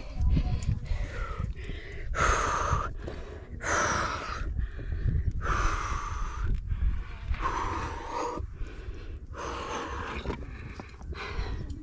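A climber breathing hard under strain: about six loud, gasping exhales, one every second and a half to two seconds, over a steady low rumble.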